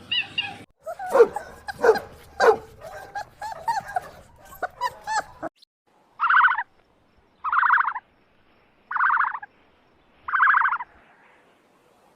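Dog barking and yipping in quick, varied yelps for about five seconds. This is followed by four short, identical animal calls, evenly spaced about a second and a half apart.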